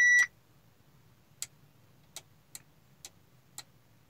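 A high electronic beep cuts off just after the start, then five soft clicks at uneven intervals as the rotary knob on a 2014 Audi A4's Audi concert head unit is turned step by step to scroll down the on-screen menu.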